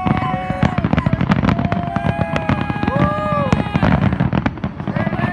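Fireworks display: a dense run of rapid crackling pops from bursting shells, continuing without a break.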